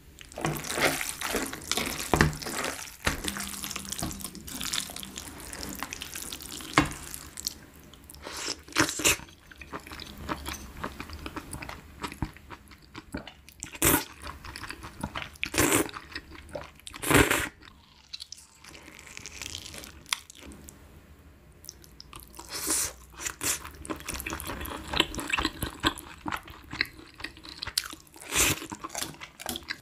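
A person eating spicy noodles: wet chewing and crackly mouth sounds, broken by about half a dozen louder slurps spread a few seconds apart.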